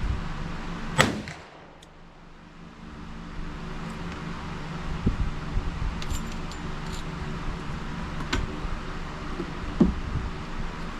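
A single sharp shot from a .45 ACP revolver, a Smith & Wesson Model 625-4, about a second in, followed by a few faint clicks and a dull knock near the end, over a steady hum.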